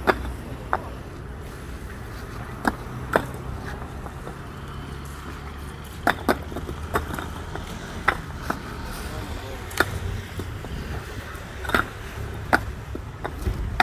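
Concrete paving stones clacking sharply against one another as they are set into place by hand, a dozen or so hard, irregular knocks. A low steady engine hum runs underneath.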